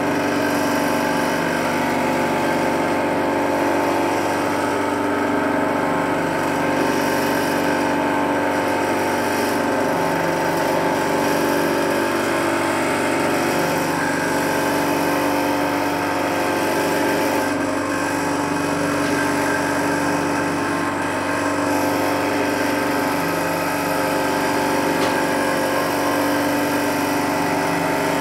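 Wei Jie WJ-30P thread winding machine running steadily on its timer, its electric motor driving the winding spindles with an even whir of many steady tones.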